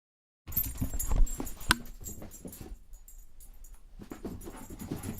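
A dog close by, making small noises and moving about, with a sharp click about a second and a half in. The sound starts suddenly about half a second in.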